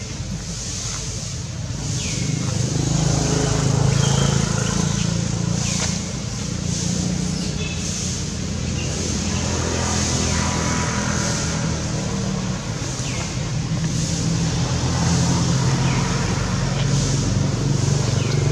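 Steady low engine hum of motor vehicles running nearby, swelling louder a few seconds in and again near the end, with a few brief high chirps over it.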